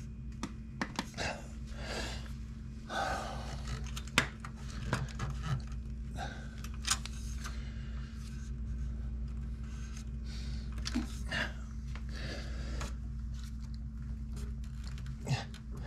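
Hands fitting a stainless steel swing arm cover plug into a Harley-Davidson touring swing arm pivot: scattered clicks, taps and scrapes as it is pressed into place, with heavy breathing over a steady low hum.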